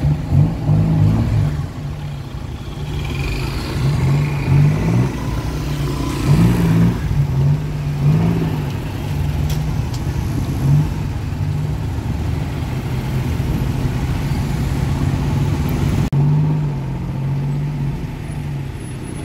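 Tuk-tuk engine running while riding in traffic, heard from the open passenger cab; its note rises and falls over and over as the vehicle speeds up and slows, over general road noise.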